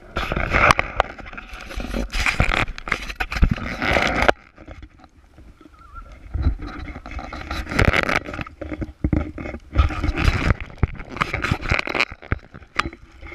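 Plastic bag crinkling and rustling against the camera microphone, with many sharp crackles. It comes in two long stretches, with a quieter gap of about two seconds between them.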